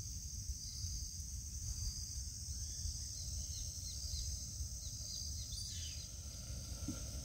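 Steady high-pitched chorus of insects, with a bird calling in a quick series of short falling notes through the middle. A low rumble runs underneath.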